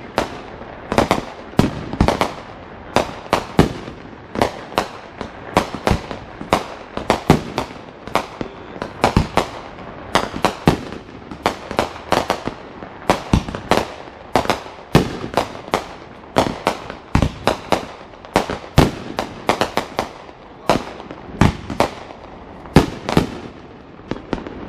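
Fireworks going off in a rapid, irregular run of sharp bangs, several a second, each with a short echoing tail.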